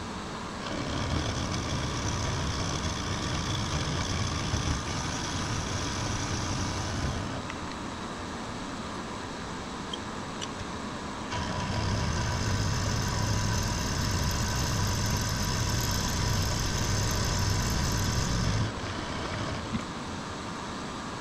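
Precision Matthews PM-25MV benchtop milling machine running steadily, taking two cutting passes across an aluminium part. Each pass is a louder stretch of cutting noise with a high whine, lasting six to seven seconds, with the motor alone running quieter between them.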